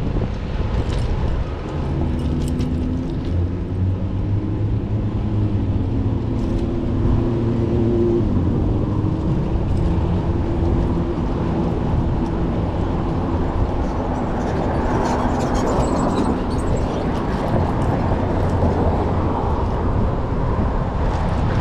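City street traffic heard from a moving bicycle: a motor vehicle's engine runs close by for about ten seconds, then gives way to a broader rush of traffic noise.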